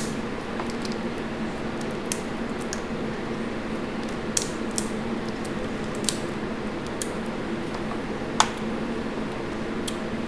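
Boiled crawfish shells being cracked and peeled by hand, giving scattered short sharp cracks and clicks, one louder crack near the end, over the steady hum of a box fan.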